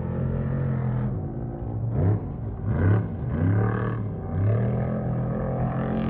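Off-road race truck engine revving, its pitch dipping and climbing again several times in the middle.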